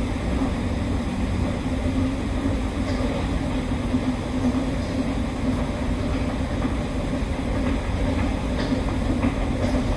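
Stockholm metro train running, a steady rumble with a constant low hum.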